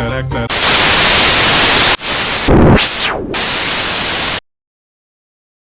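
Loud TV static hiss cuts off a music jingle about half a second in. It comes in several abrupt blocks, with a brief whoosh that rises and falls in pitch near the middle. The hiss stops dead, leaving silence, a little over four seconds in: a simulated broadcast interruption before an emergency alert.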